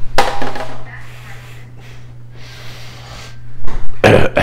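A metal sheet pan lined with paper towels set down on the countertop with a short rustling clatter, then a second burst of handling noise near the end, over a steady low hum.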